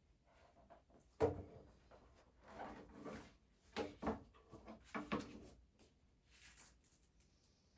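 Light knocks and clatter of things being handled at a desk: about six separate taps, the loudest about a second in, the rest spread over the next four seconds.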